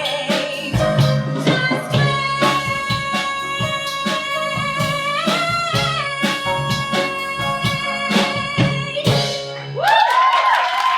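Live band of bass and drums backing a long held sung note at the end of a show tune. The music stops about nine seconds in, and the audience breaks into whoops and applause.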